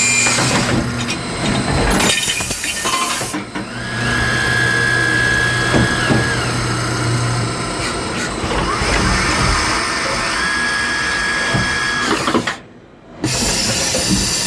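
Manurhin K'MX 916 Clever Swiss-type CNC lathe running through a machining cycle: steady machine noise with a motor whine that rises, holds and falls twice. The sound drops out briefly near the end.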